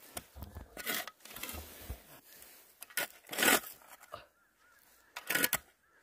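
Pointed steel shovel digging into loose soil: three scraping scoops about two seconds apart, the middle one loudest, with a few dull thuds of the blade early on.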